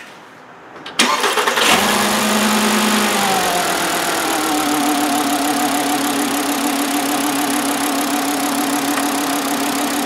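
2009 Volkswagen Jetta's 2.5-litre inline five-cylinder engine being started. About a second in it cranks briefly and catches with a flare in revs that falls away over the next couple of seconds, then settles to a steady idle. It is misfiring on cylinder one, which gets no spark from its failed ignition coil.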